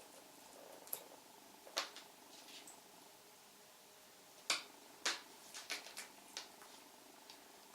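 A cat playing with shoelaces on a pair of shoes: scattered sharp taps and scrapes, the loudest a little past halfway, followed by a quick cluster of them.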